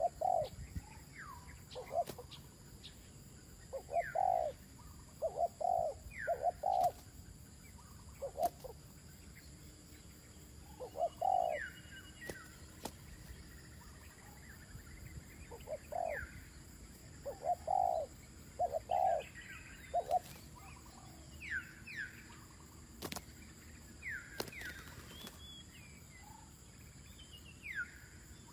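Spotted doves cooing: phrases of several low, hollow coos repeated every few seconds. Between them come short, high, falling chirps from another small bird.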